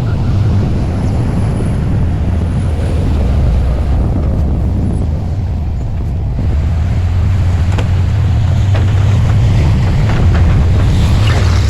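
Heavy earthmoving machine's diesel engine running with a steady deep rumble, with a few faint clanks near the end.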